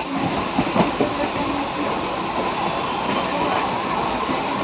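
A passenger train's carriages passing on the next track, heard through an open coach window: a steady running noise of wheels on rails.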